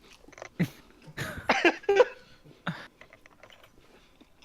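A man coughing and clearing his throat in a few short bursts, the loudest cluster near the middle, while straining to get down the last of a large meal.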